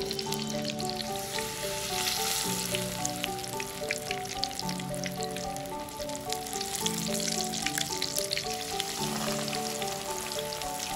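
Flour-battered spinach leaves stuffed with tofu deep-frying in hot oil in a wok: a dense, steady sizzle with many sharp crackles and pops. Soft background music plays underneath.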